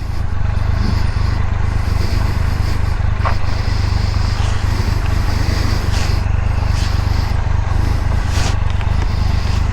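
Motorcycle engine idling steadily while the bike is backed into a parking spot, with a few faint scuffs over it.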